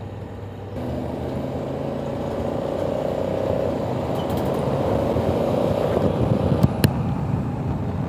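Honda Africa Twin motorcycle under way: engine and wind rush, growing steadily louder after a quieter first second, with a single sharp click near the end.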